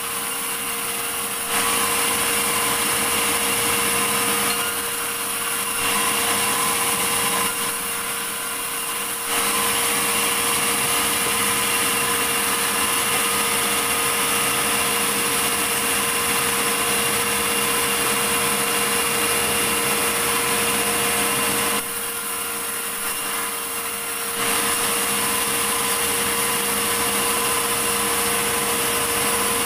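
Sawmill saw cutting a large medang log, the machine running steadily with a high hiss. The cutting noise grows louder and eases back several times, with one long loud stretch of continuous cutting through the middle.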